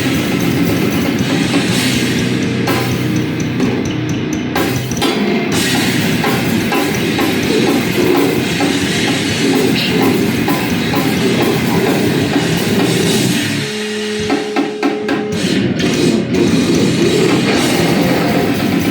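A heavy band playing loud and live, with drum kit and guitar. About three-quarters of the way in, the band breaks off. A held note rings over a few sharp hits, then the full band comes crashing back in.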